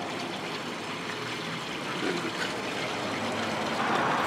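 Swimming-pool water lapping and trickling close by, a steady watery hiss.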